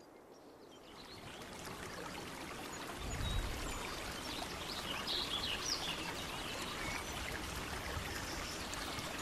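Creek water running, fading in over the first couple of seconds and growing fuller about three seconds in. A few short bird chirps sound over it midway.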